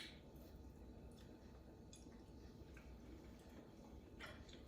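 Near silence: room tone with a sharp click at the start, a few faint ticks, and a brief soft squish near the end.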